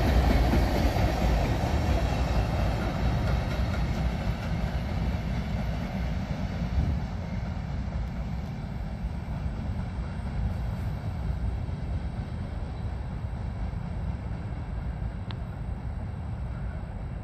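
Freight train rolling away after passing at speed: the rumble of its wheels on the rails gradually fades.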